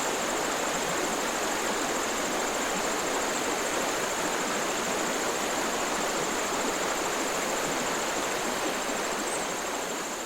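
Steady rushing water noise with a faint high whine above it, fading out near the end.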